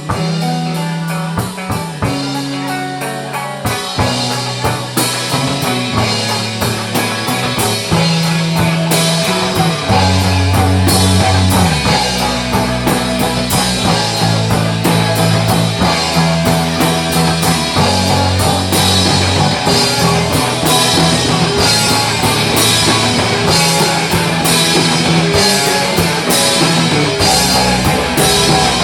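Live rock band playing an instrumental section, with drum kit, bass and electric guitar; it builds up over the first few seconds and then drives on at full loudness.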